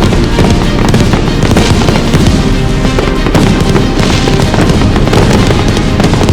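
Fireworks going off in quick succession, many bangs and crackles overlapping, with music playing loudly alongside.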